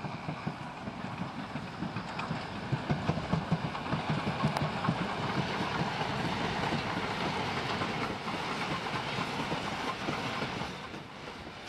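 Steam locomotive hauling a train past, its noise building to a run of quick, rhythmic beats in the first half, loudest in the middle and dropping off near the end.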